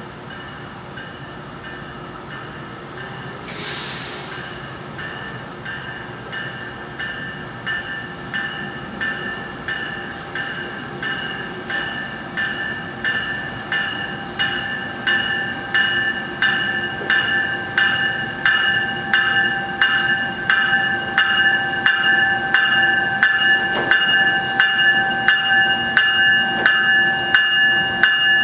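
Bell of an arriving Metrolink train ringing about twice a second, getting steadily louder as the train pulls into the platform, over the low rumble of the train. A short hiss sounds about three and a half seconds in.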